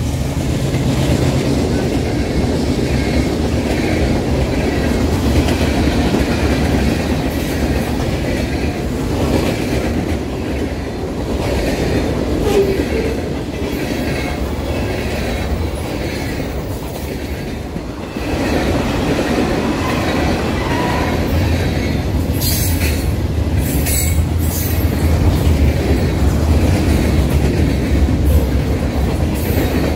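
Freight train passing at close range: diesel locomotives at the start, then a long string of freight cars rolling by on steel wheels, with a few sharp high metallic sounds about three quarters of the way through.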